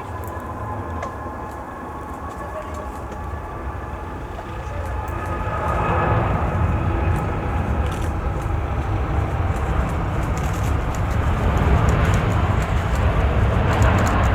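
Jet airliner engines rumbling with a thin steady whine above, growing louder about five seconds in as the aircraft comes closer.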